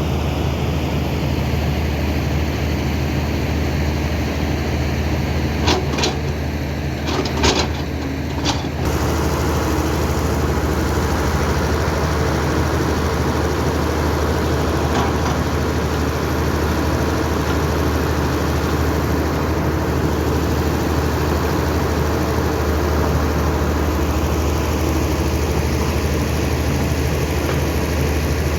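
Hydraulic excavator's diesel engine running steadily, with a few sharp knocks about six to seven and a half seconds in.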